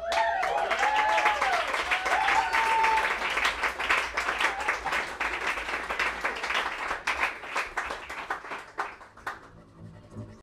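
Audience applauding and cheering after the song's last notes, with cheers rising and falling in the first three seconds; the applause fades out near the end.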